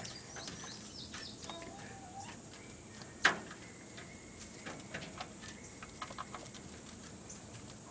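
Birds chirping faintly, with a single sharp knock a little over three seconds in.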